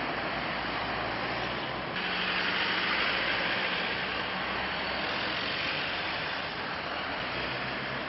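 Steady road noise of a car on the move, tyre and wind hiss with engine noise underneath, getting a little louder and brighter about two seconds in. There is no crash or impact.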